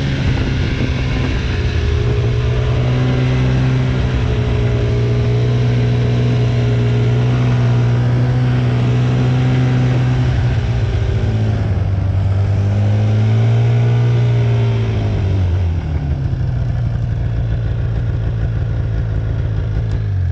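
Snowmobile engine running under way, heard from the rider's seat, at a steady pitch; about two-thirds of the way through it revs up and eases back down again.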